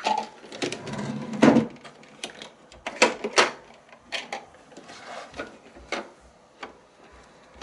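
Irregular clicks and knocks of small plastic toys being handled, such as a toy washing machine and doll pieces being moved and opened.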